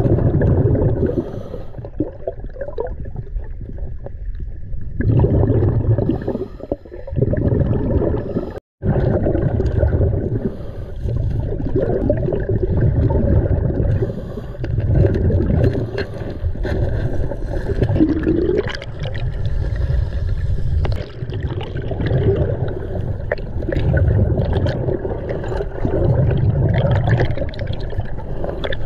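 Scuba diver's breathing underwater: air through the regulator and exhaled bubbles gurgling in bursts every three or four seconds, with a brief break about nine seconds in.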